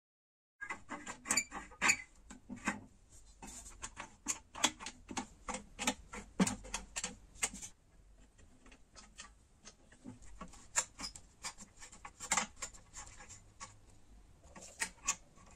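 Pliers and gloved hands taking apart the corroded metal handle of an old copper kettle: irregular metallic clicks, taps and small scrapes, busiest in the first half.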